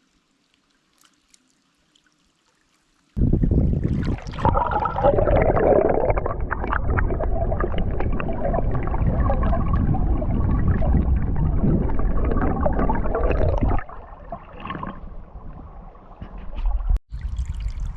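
Loud rushing, gurgling water close to the microphone. It starts abruptly about three seconds in after near silence, eases off about three quarters through, cuts out for an instant near the end, then returns.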